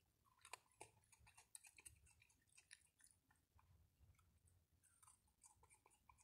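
Faint chewing and crunching by a raccoon eating, a run of small irregular clicks and crackles, busiest in the first few seconds and again near the end.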